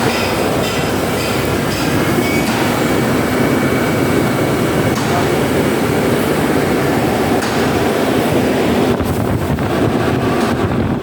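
Bus air-conditioning unit running with a loud, steady drone.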